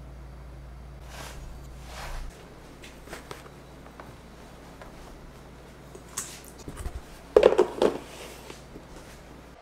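Handling sounds of a plastic food-storage tub. A plastic bench scraper works soft bread dough into the tub, with soft scrapes and light knocks. About seven and a half seconds in, the tub's plastic lid is set on and handled in a quick cluster of clacks, the loudest sounds.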